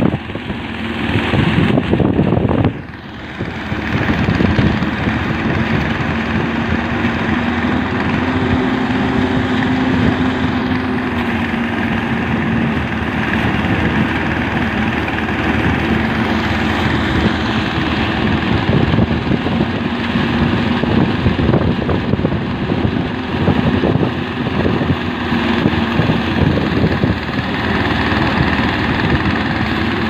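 Portable rice thresher running steadily, its small engine and spinning drum making a loud hum whose pitch wavers a little. The sound dips briefly about three seconds in.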